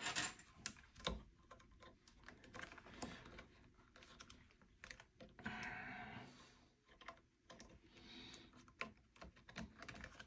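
Faint, irregular clicks, taps and scrapes of plastic and metal as hands adjust the toilet seat's hinge mounting plates and bolts, with a longer rubbing scrape about halfway through.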